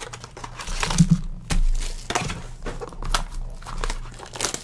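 Plastic and foil wrapping on baseball card packs being crinkled and torn open by hand, in irregular rustles and crackles.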